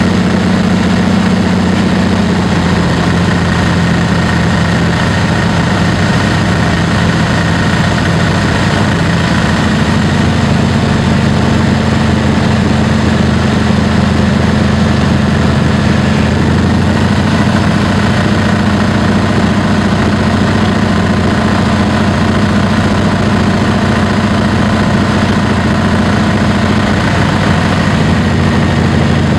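Single piston engine and propeller of a small single-engine plane running steadily through a landing approach, heard from inside the cockpit.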